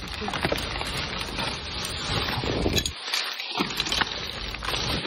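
Plastic trash bags, wrappers and paper rustling and crinkling as a gloved hand digs through a dumpster, with many small crackles.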